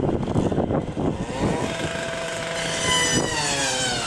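Chainsaw engine revving, its pitch sliding up and down, held steady at high speed for about two seconds in the middle.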